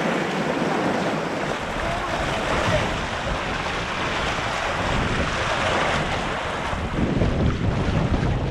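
Rushing white water of a river riffle around a moving canoe, with wind buffeting the microphone as a low rumble.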